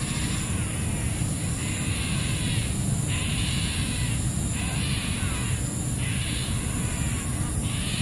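Harsh, rasping animal calls, each about a second long, repeating roughly once a second over a steady low rumble.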